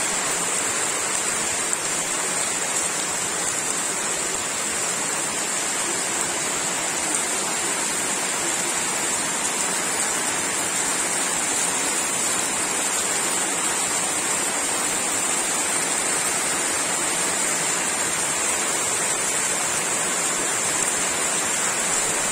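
Heavy monsoon downpour: a steady, unbroken hiss of rain falling on trees, grass, concrete and puddles.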